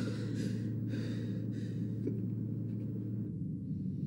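A quiet, steady low hum of room tone. Faint breathy sobbing sounds over it in the first second and a half, and the hum changes about three seconds in, where the scene cuts.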